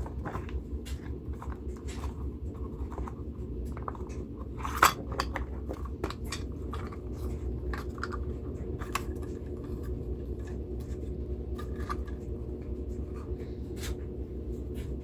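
Scattered small plastic clicks and taps as an HO scale model locomotive is handled and fitted onto the track, with one sharper knock about five seconds in, over a steady low hum.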